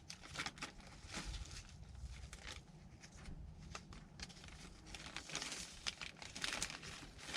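Seed packets being rummaged through and handled, a run of irregular crinkles and rustles, a little louder near the end.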